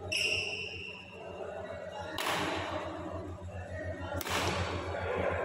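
Badminton rally: a shuttlecock is struck by rackets twice, about two seconds apart, each hit a sharp crack with a short echo in the hall. A brief high squeak at the start comes from a shoe on the court mat.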